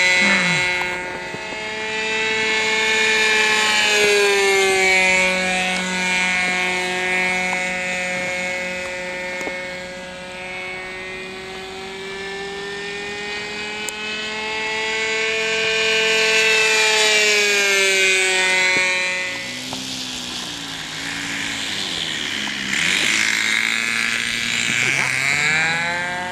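Radio-controlled model floatplane's motor and propeller running in flight, the pitch slowly rising and falling as it flies about. About twenty seconds in the engine throttles back to a lower, wavering note, then the pitch climbs again near the end as it comes in low.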